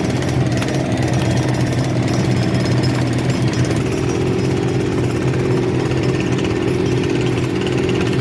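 A power tool runs steadily with a fast, rattling beat over a low hum, like a hammer drill or breaker at work; a higher tone strengthens about four seconds in.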